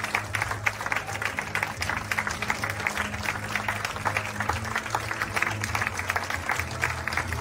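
Audience applauding, a dense patter of many hands clapping, over music with steady low held notes.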